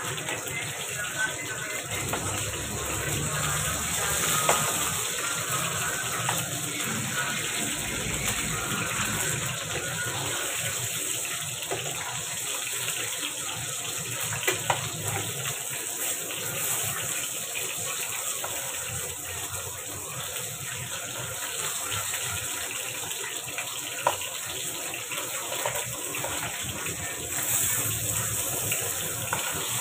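Steady hissing, water-like noise of food cooking on the stove, with a few faint clicks.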